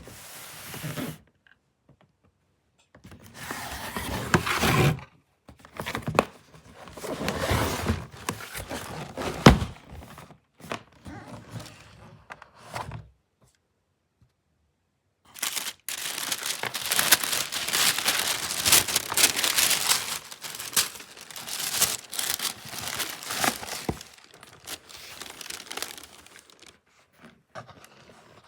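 Packaging being opened by hand: paper and wrapping crinkling and tearing in stretches, with a sharp thunk about a third of the way in and a long, dense stretch of rustling in the second half.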